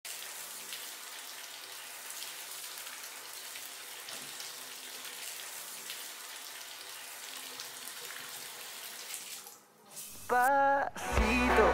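Shower water spraying steadily onto a person. Near the end the water sound drops away and a mobile phone starts ringing with a loud music ringtone: a wavering melody, then a song with a beat.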